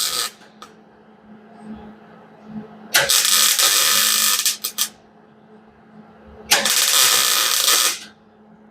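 MIG welder arcing in short spot-weld bursts on a cracked door-hinge mount: the tail of one burst at the start, then two bursts of even crackling hiss about a second and a half long, the first followed by a few quick blips. A low steady hum runs between the bursts.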